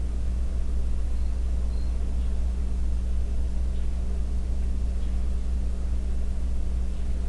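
A steady low hum that does not change, with a fainter steady tone above it.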